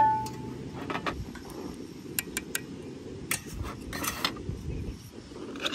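Metal camp pot ringing as it dies away after being knocked, then a series of light metallic clicks and clinks as the pot and its lid are handled, over a steady low background rumble.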